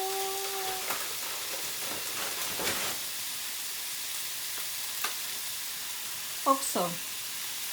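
Marinated meat and vegetables sizzling steadily in a frying pan, with a few sharp clicks of a utensil against the pan as the stir-fry is stirred.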